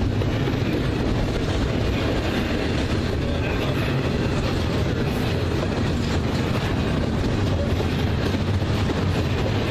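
Slow intermodal freight train rolling past: a steady rumble of steel wheels on the rails.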